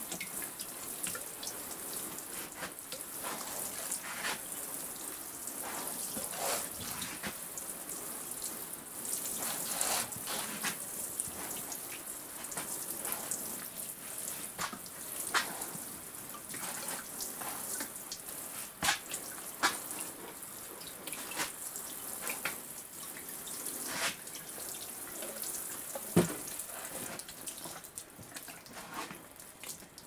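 Water from a watering can sprinkling onto freshly sown soil: a steady hiss of falling water, starting suddenly, with many small splashes and knocks scattered through it.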